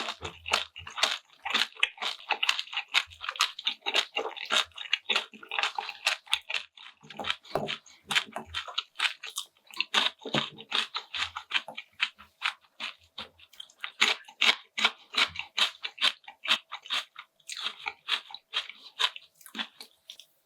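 Close-miked chewing and biting of food, a steady run of many quick, sharp crackling clicks several times a second.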